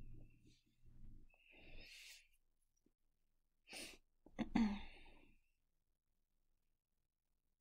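A person's soft breaths and mouth noises, then a short, sharp breathy vocal burst about four and a half seconds in, the loudest sound, followed by quiet.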